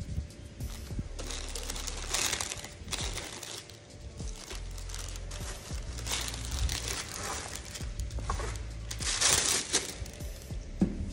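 Packaging crinkling and rustling in irregular bursts as a shoe box is unpacked, over soft background music.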